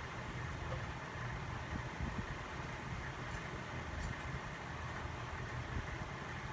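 Ceiling fans running steadily: a low motor hum under an even rush of moving air.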